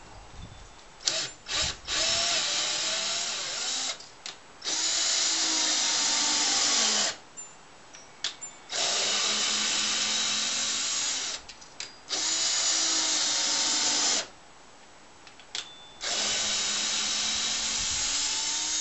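Red cordless drill run against a wooden log post in five long runs of a few seconds each, with short trigger blips between them. Its whine drops in pitch as some runs end.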